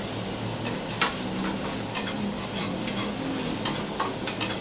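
Spoon stirring a thick masala gravy frying in a kadai, with a steady sizzle underneath and a few sharp clicks of the spoon against the pan.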